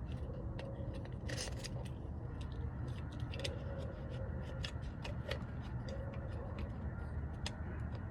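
Scattered light clicks and taps of plastic parts being handled as a Google Nest doorbell's wedge mount is turned over and fitted into place, over a steady low rumble.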